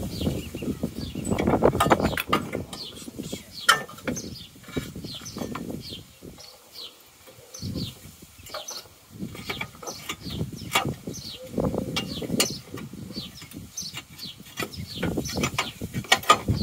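A plastic windscreen-washer bottle being handled and fitted in a car's engine bay: rustling, scraping and a few knocks, loudest in the first couple of seconds. Behind it a bird chirps over and over, short falling chirps about one or two a second.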